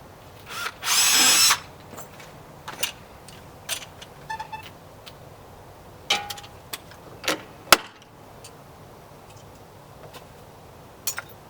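Power drill with a 1/8 bit running briefly, about half a second, drilling a hole through the caravan's checker plate for a draft-skirt stud. Scattered clicks and taps follow.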